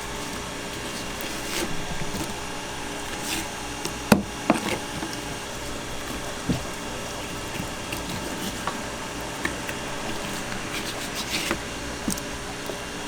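A knife knocking and scraping on a wooden cutting board as fish is cut up for sashimi, in scattered strokes with one sharp knock about four seconds in, over a steady hum.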